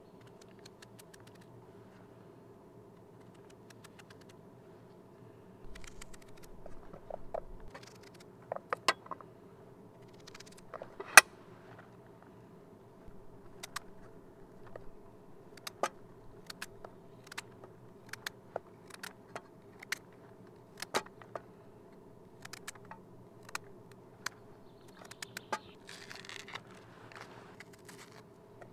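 Small knife cutting raw potato, carrot and onion by hand over a metal pot: scattered sharp clicks and snaps as the blade goes through and pieces drop in, one much louder snap near the middle, and a short rustle near the end. A faint steady hum lies underneath.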